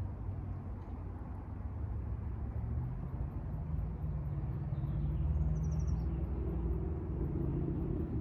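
Low rumble of passing motor traffic, an engine hum swelling about three seconds in and easing off near the end. A short bird call of a few quick high notes comes about five seconds in.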